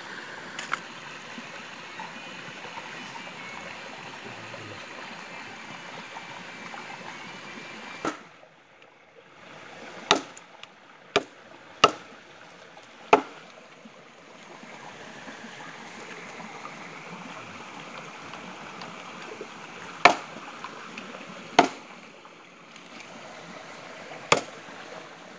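A steady rushing like a nearby stream, then seven sharp, separate cracks spread over the second half: an open wood-and-bamboo fire crackling and popping.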